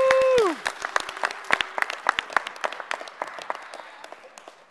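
Audience applause, dense at first and thinning out until it dies away near the end, with a high held cheering voice that drops off about half a second in.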